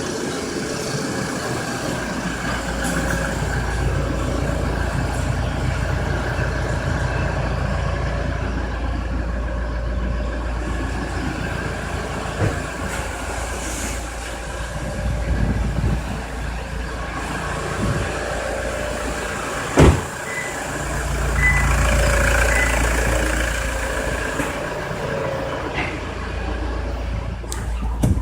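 Toyota Prado 3.0 turbo-diesel engine running steadily, with a thin turbo whistle above the engine note. There is a sharp knock about twenty seconds in, followed by a brief swell in engine sound.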